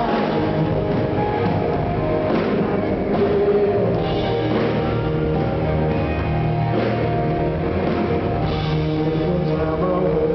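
Live rock band playing a song, with electric guitar and drums, loud and steady.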